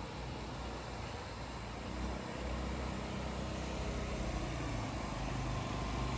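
An engine running steadily, getting a little louder about two seconds in.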